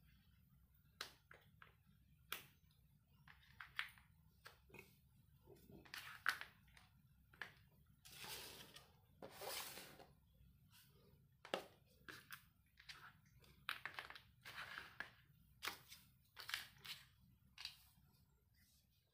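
Light taps, clicks and rustles of a hand picking up and setting down an unboxed LiPo hardpack battery, its cardboard box, paper leaflets and leads on a cutting mat, with a few longer sliding rustles around the middle.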